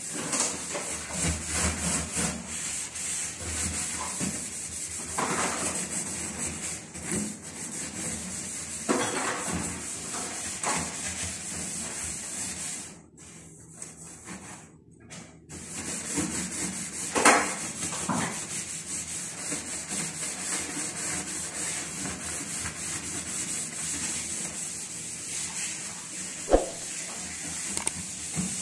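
Steady scrubbing and rubbing on a hard surface during kitchen cleaning. It stops for about two seconds around halfway through, and there are a couple of sharp knocks.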